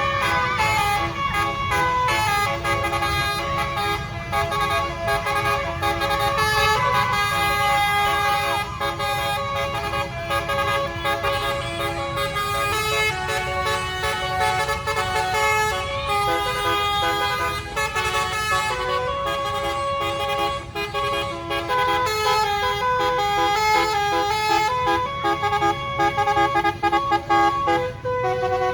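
Bus telolet basuri horn, a 12-note musical air horn, playing a long continuous melody of held chord-like notes that step from pitch to pitch, over a low rumble.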